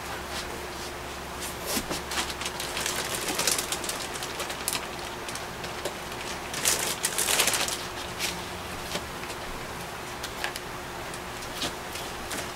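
Intermittent rustling and light clicks of someone moving about and handling clothing or a clip-on microphone, louder about three seconds in and again around seven seconds, over a steady faint hum.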